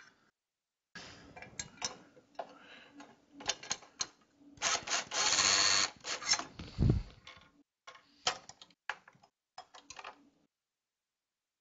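Cordless drill driving a screw through a metal blind bracket in one steady run of about a second and a half, about halfway through, followed by a low thud. Scattered clicks and knocks of the bracket and screw being handled come before and after.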